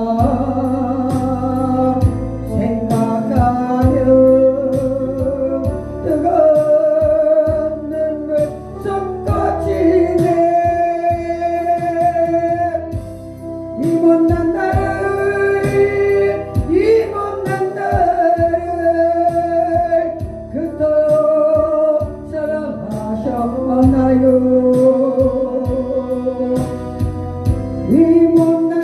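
A hymn sung in Korean over instrumental accompaniment with a steady beat, the voice holding long notes with vibrato.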